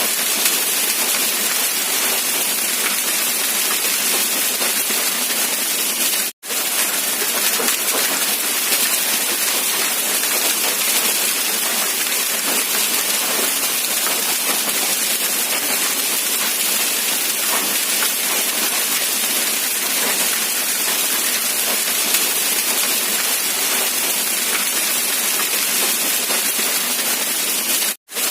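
Steady rain falling, an even hiss of countless drops. It cuts out to silence for an instant twice, about six seconds in and near the end.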